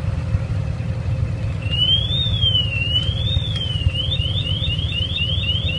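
A motorcycle alarm goes off as the parked bike is tampered with. It starts about one and a half seconds in as a high tone sweeping slowly up and down twice, then switches to rapid rising chirps, about four a second. A steady low engine idle runs underneath.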